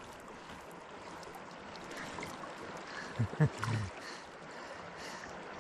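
River water flowing steadily, with a brief low voice sound about three and a half seconds in.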